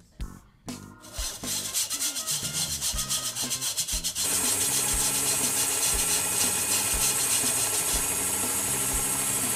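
Flour being scraped through a metal mesh sieve: a fast rhythmic scraping that becomes a loud, steady rasping about four seconds in.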